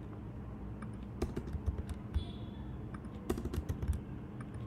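Computer keyboard being typed on: short bursts of a few key clicks at a time, with pauses between them.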